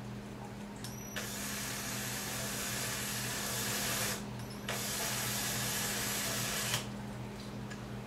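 Cordless drill/driver running in two bursts, about three seconds and then about two, each starting and stopping abruptly, as it drives screws that hold solderless LED connectors onto an aluminium heat sink. A low steady hum sits underneath.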